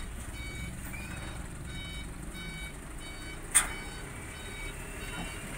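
Dump truck's reversing alarm beeping steadily about twice a second over a low engine rumble. One sharp knock about three and a half seconds in.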